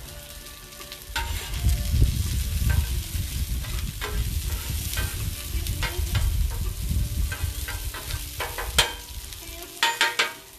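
Taquitos sizzling on a Blackstone flat-top griddle, a steady frying hiss, with scattered clicks and scrapes that get louder near the end. About a second in, a low rumble of wind buffeting the phone's microphone comes in under the sizzle.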